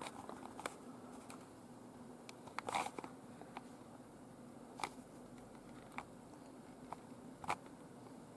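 Scattered light clicks and knocks from a Double Eagle M401 spring airsoft shotgun being handled. The loudest is a short cluster about three seconds in, over a faint steady hum.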